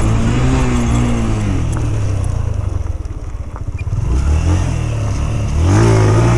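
Yamaha YBR 125's single-cylinder four-stroke engine under way on a dirt track: the revs fall off over the first second and a half, it runs lower and quieter for a couple of seconds, then the revs rise again twice near the end.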